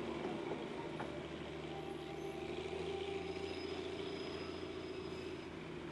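Diesel locomotive of the Darjeeling Himalayan Railway's narrow-gauge toy train running steadily as it hauls the train uphill, a level engine hum that fades slightly near the end as the train draws away.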